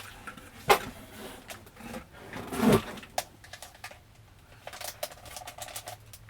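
Small packaging being handled and opened by hand: scattered sharp clicks and rustles, with a louder rustle a little before the middle.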